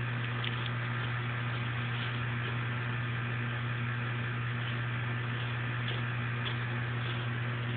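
Steady low hum under an even hiss, with a few faint high ticks.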